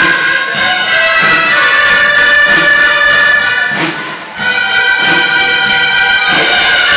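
A student ensemble of dolçaines (Valencian shawms) playing a melody together, with a tabal drum keeping time. The shawms break off briefly about four seconds in, then come straight back in.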